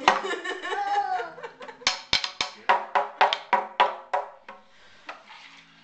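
A toddler's voice calls out, then a small frame drum is struck with a round-headed stick, about ten quick, uneven beats over nearly three seconds.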